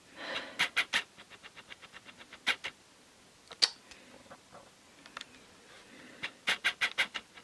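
A small bat held in a gloved hand giving rapid clicking chatters in short runs, a fast faint run early on and a louder run near the end; the bat is agitated at being handled and has been biting.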